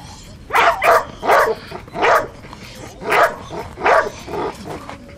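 A Doberman barking in agitation at a helper's bite sack during protection training: about six loud, sharp barks in the first four seconds, then a few fainter ones.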